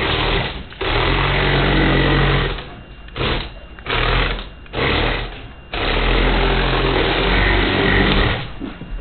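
LEGO Power Functions electric motors driving a LEGO 7645 Crystal Reaper model, running in six start-stop bursts. The last run is the longest, about two and a half seconds.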